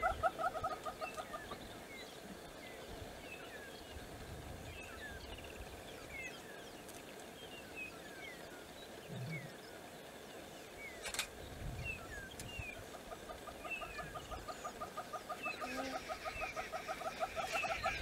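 Southern yellow-billed hornbills calling: a fast, even run of notes that dies away in the first second or two, then starts again after a quiet middle and grows louder over the last few seconds. Faint chirps of small birds come in between, with one sharp click about eleven seconds in.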